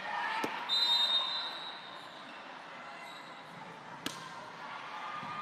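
Volleyball being played in a gym: a sharp ball strike, then a single whistle blast of about half a second, likely the referee's, and another ball strike about four seconds in, over a low background murmur.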